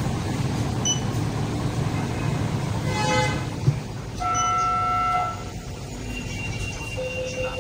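Cabin of a supercapacitor tram standing at a stop: a low steady rumble, a short toot about three seconds in, then a pitched tone held for about a second. A faint thin steady tone begins near the end.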